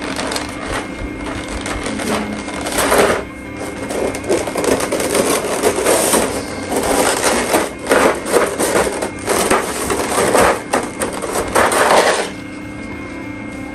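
Model-kit packaging being handled: irregular bursts of crinkling and rustling that stop abruptly about twelve seconds in.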